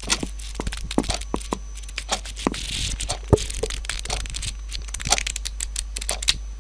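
A quick run of irregular clicks and taps with a short papery rustle about two and a half seconds in, over a steady low hum.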